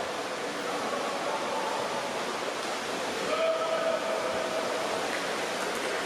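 Echoing noise of a swimming-pool hall during a water polo game: a steady wash of splashing water and distant voices. A little past halfway, one voice or call is held for about a second and is the loudest thing.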